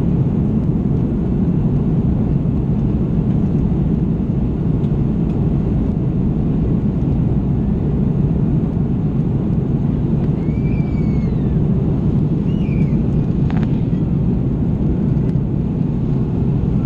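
Steady cabin noise of an Airbus A330 airliner in flight: a constant low rumble of the jet engines and airflow heard from a window seat over the wing. A few faint, brief high-pitched sounds come a little past halfway.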